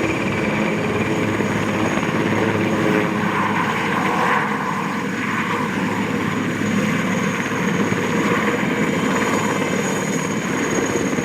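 Aérospatiale SA-330L Puma helicopter taking off, loud and steady: the twin turboshaft engines give a continuous high whine over the rapid beat of the main rotor.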